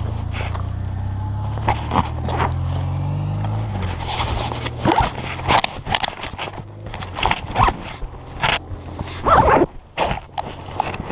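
A motorcycle engine runs with a steady low hum and stops about four seconds in. After that come irregular scraping and rustling of the camera rubbing against a mesh riding jacket, with clicks of handling.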